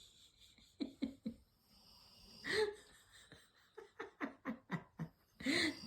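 A person laughing softly, with a few short chuckles, then a quick run of fading laughs near the end.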